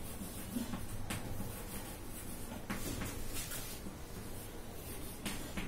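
Chalk writing on a blackboard: a few short, faint taps and scrapes of the chalk against the board.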